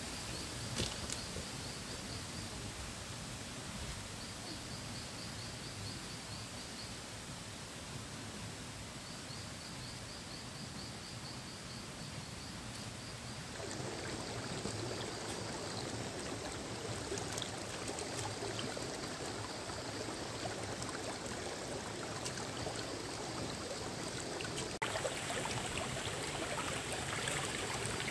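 A shallow forest stream running over rocks, a steady rush of water. It grows louder about halfway through and again near the end, as the water comes closer.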